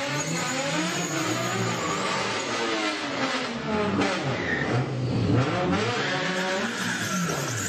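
Several car engines revving hard at once, their pitches rising and falling over one another again and again, with tyres spinning and squealing in burnouts.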